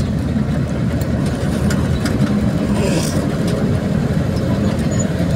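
Steady low engine and road noise from a vehicle being driven.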